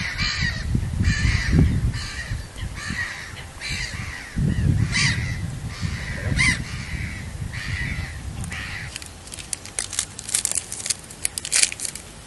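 Crows cawing repeatedly, over a low rumble through the first half. In the last few seconds the calls give way to a quick run of rustling clicks.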